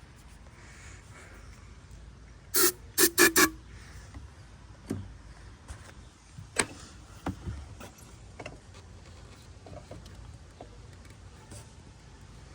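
Four quick, sharp clacks about three seconds in, then scattered faint knocks and clicks of handling at the golf cart's engine while it is being primed with fuel.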